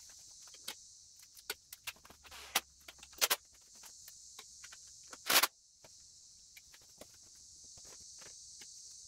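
Scattered clicks and knocks of a tool and the motorcycle seat being handled and set in place, the loudest a short clatter a little over five seconds in, over a steady high hiss.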